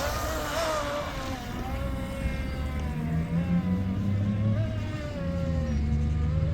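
A 20-inch DIY RC mono boat running flat out on a 4S battery. Its 2600 kV 28 mm inrunner motor turns a 36 mm prop and gives a high whine. The whine shoots up in pitch at the very start, then holds high and wavers, over a low rumble.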